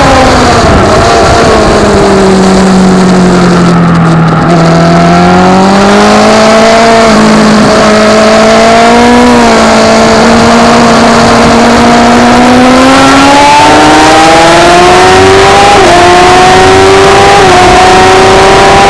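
Kawasaki ZX-10R inline-four engine at racing speed. The revs fall as the bike slows into a corner, climb slowly through it, then rise hard on the exit, with two quick upshifts near the end where the pitch drops sharply. Wind rushes past throughout.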